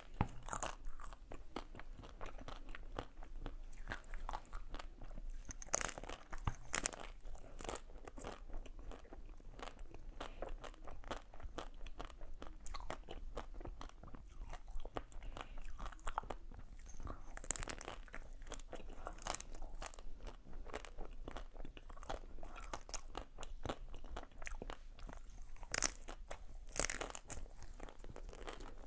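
Close-miked eating of ice cream: repeated crunchy bites and chewing, with louder clusters of bites now and then.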